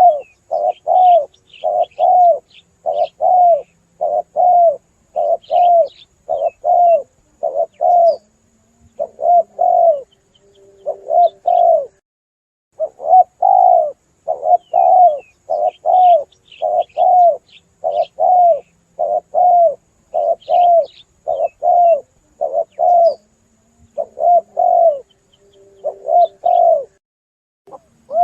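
Spotted doves (tekukur) cooing in a rapid run of short, loud coos, about two a second, with a brief pause about twelve seconds in and faint higher chirps over them. It is a lure call for drawing spotted doves in, and the same stretch repeats as a loop about every fifteen seconds.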